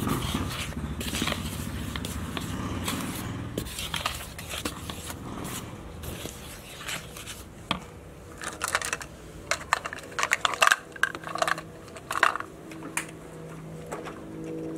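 Wooden spoon stirring dry flour in a bowl, scraping and knocking against the bowl, then a run of sharp clicks and clatters as utensils and a jar are handled.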